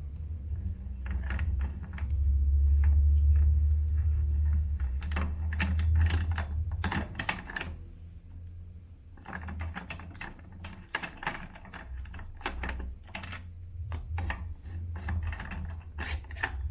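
Ratchet wrench clicking in quick runs as the crank's lock nuts and Allen bolt are loosened, with a low hum underneath that is strongest a couple of seconds in.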